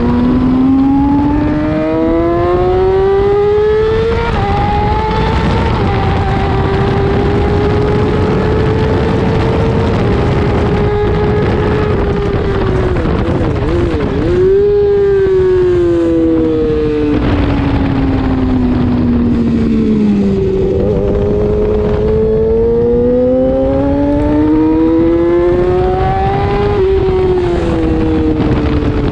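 600cc road-racing motorcycle engine pulling hard, heard from an onboard camera. The pitch climbs and drops sharply at an upshift about four seconds in, sinks steadily as the bike slows for a corner in the middle, then climbs again to another upshift near the end. Steady wind rush lies under it.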